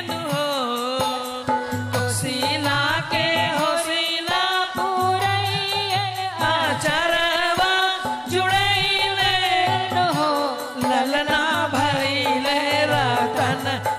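A woman's voice singing a sohar, the folk song sung to celebrate a child's birth, in long ornamented lines with wavering pitch, over instrumental folk accompaniment.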